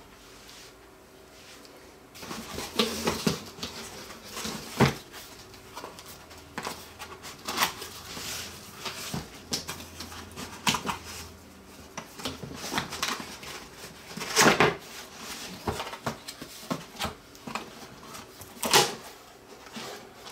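Cardboard box being handled and its flaps pulled open, with scattered scrapes, taps and rustles. The two loudest come about two-thirds of the way through and near the end.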